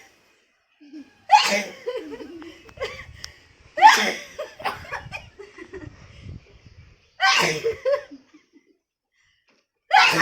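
Loud sneezes, three in a row a few seconds apart and a fourth starting right at the end, set off by a powder sniffed up the nose, with laughter between them.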